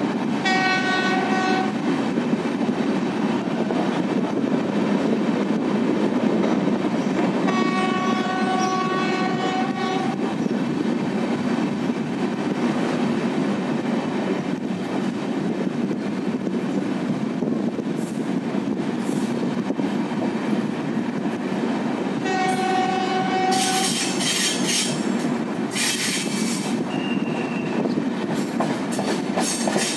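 A WAP7 electric locomotive's horn sounds three times, the middle blast the longest, over the steady rumble and clatter of the express train's coaches running at speed, heard through an open coach door. A few short bursts of high hiss follow the last blast.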